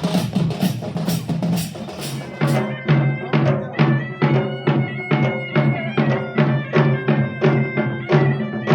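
Traditional festival drums beaten in a fast, even rhythm, with ringing bells and steady tones sounding through the beat. About two and a half seconds in, the sound changes: the high hissy clatter drops away and a cleaner, evenly spaced drumbeat carries on.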